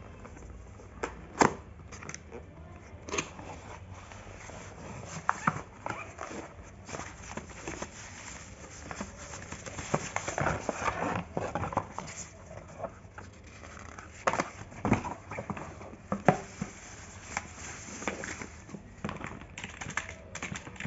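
Handling of a mechanical keyboard and its plastic packaging: irregular clicks and knocks with stretches of crinkling, busiest in the middle.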